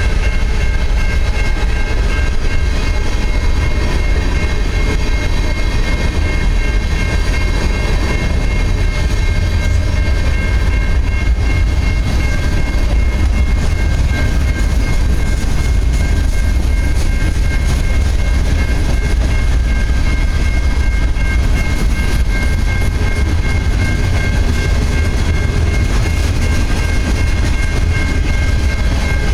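Cars of a mixed freight train rolling past at speed: a steady heavy rumble of wheels on rail with rapid clicking, and a steady high-pitched ring over it.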